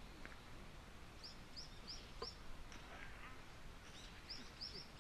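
A small bird chirping: short high notes in quick runs of about four, twice, over a faint steady background hiss. A single sharp click a little over two seconds in.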